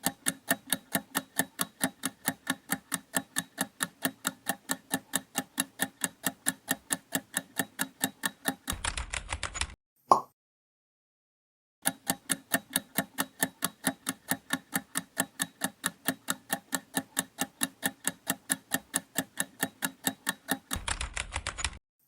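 Quiz countdown-timer sound effect: clock-like ticks about four a second for around nine seconds, ending in a brief faster rattle, then a gap and a short single sound about ten seconds in. The whole sequence plays twice.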